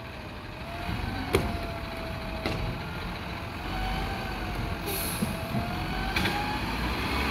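New Way automated side-loader garbage truck idling while its hydraulic arm lifts a wheeled trash cart, tips it over the hopper and sets it back down, with a steady whine over the engine. Sharp metal clanks come about a second and a half in, again a second later and near the end, with a brief hiss in the middle.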